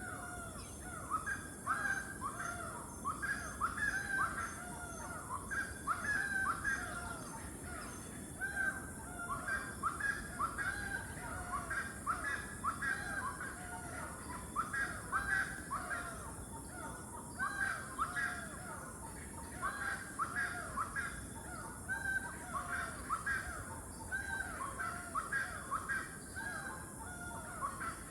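Loud birds calling from across the water, many short calls repeated over and over, each one falling in pitch. A steady high insect drone runs beneath them.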